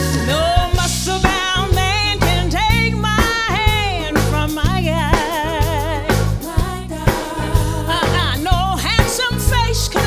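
A live soul band with drums, bass and keyboards playing a steady beat, while a woman sings lead, with a wide vibrato on a held note about halfway through.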